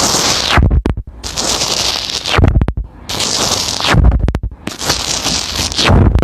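Soft slime being squished and pressed by hand, giving crackly, sticky squelches in about four long strokes with short pauses between them.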